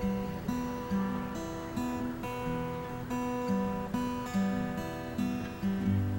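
Acoustic guitar music, picked and strummed in a steady pulse of about two notes a second.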